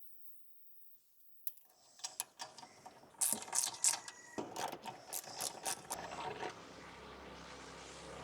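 Irregular metallic clicks and knocks of hand tools working the diesel pre-filter housing, loudest about three seconds in, then a steady low noise that carries on.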